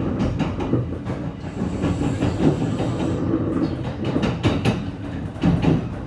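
Kintetsu 23000-series Ise-Shima Liner limited express running at speed, heard inside the passenger car: a steady rumble of wheels on rail with repeated clattering knocks from rail joints and points.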